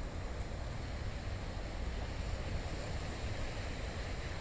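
Rough ocean surf, a steady wash of breaking waves, with wind rumbling on the microphone.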